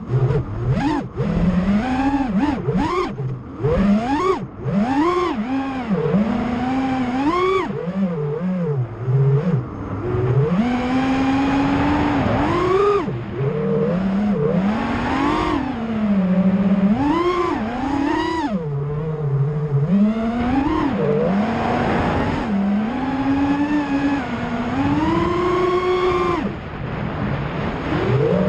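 FPV freestyle quadcopter's Emax Eco 2207 1700 KV motors on 6S with T-motor tri-blade props, whining as they are flown hard. The pitch swoops up and down constantly with the throttle: many quick rises and falls in the first few seconds, then longer stretches held high or low.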